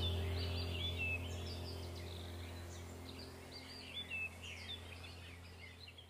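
Birds chirping over a low, steady drone from a meditation track, both slowly fading out.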